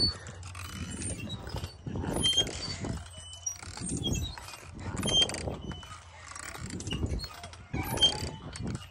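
Playground swing set creaking and squeaking rhythmically at its metal hangers as the swings go back and forth, with air rushing past the microphone on each pass, about every second and a half.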